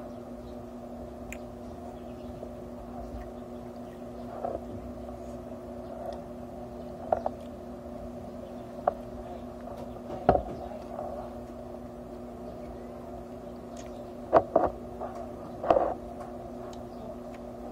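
Scattered clicks and short crunchy bites of someone eating unripe mango slices with chopsticks, over a steady background hum.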